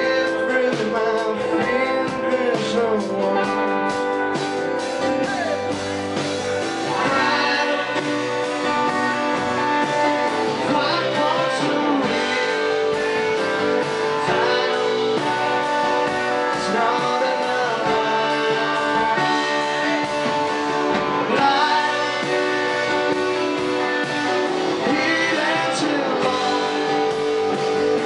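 Live band playing a bluesy rock song, with electric and acoustic guitars, a drum kit and a singing voice.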